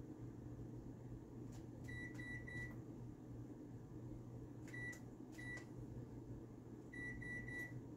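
Microwave oven keypad beeping as the cooking time is entered: short single-pitch beeps in groups, three about two seconds in, two around five seconds in and three near the end, over a faint steady low hum.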